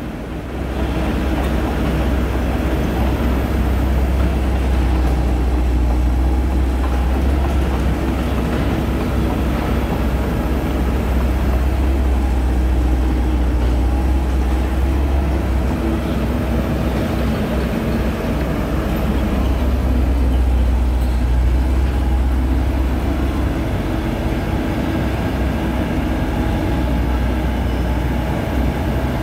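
Diesel engine of a Komatsu PC78US-8 compact excavator running steadily at idle, a low, even rumble.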